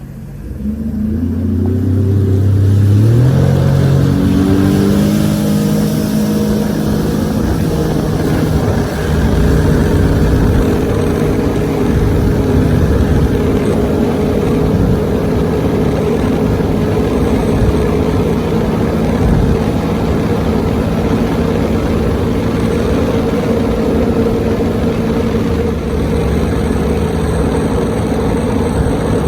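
Jet ski engine throttling up from slow speed, its pitch climbing for the first several seconds, then running steadily at cruising speed with rushing wind and water noise.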